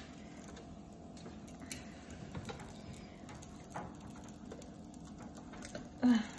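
Faint scattered clicks and mouth noises of someone chewing close to the microphone, then a short voiced syllable about six seconds in.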